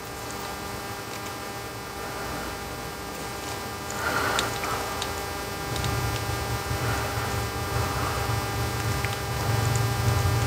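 Steady electrical mains hum, with a few faint ticks and rustles; a louder low rumble comes in about six seconds in.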